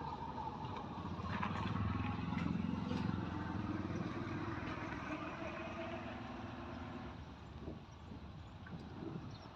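A motor vehicle's engine running, growing louder in the middle and fading away about seven seconds in.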